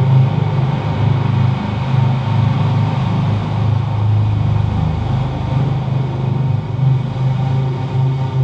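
Experimental electronic soundtrack: a loud, steady low drone with fainter held tones above it.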